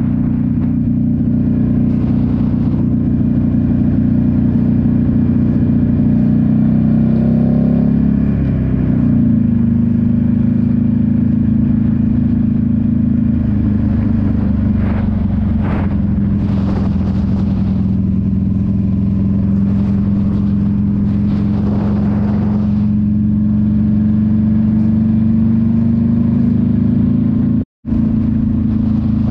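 Motorcycle engine running at a steady cruise, heard from the bike itself. Its pitch drops about eight seconds in, then rises slowly. The sound cuts out for a split second near the end.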